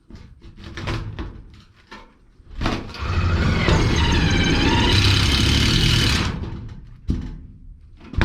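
Power drill driving a self-tapping screw into the shed's sheet-metal wall: a few clicks and knocks, then the drill runs under load for about three and a half seconds with a wavering whine before easing off, followed by two sharp knocks near the end.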